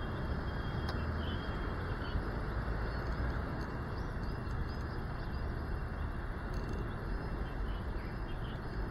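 Steady outdoor background noise with a low rumble, and faint, scattered short bird chirps above it.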